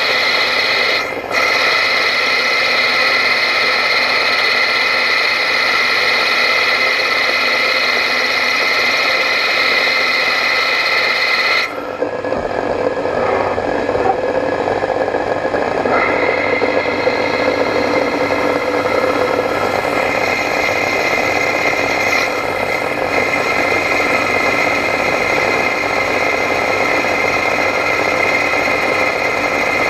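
ProtoTrak lathe running with a steady, high-pitched whine while the tool turns the brass nozzle stock. The higher part of the whine stops about twelve seconds in, then comes back in steps over the next several seconds.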